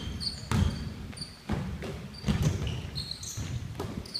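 A basketball being dribbled on a hardwood gym floor, a bounce about every second, echoing in the hall, with short high sneaker squeaks from players moving on the court.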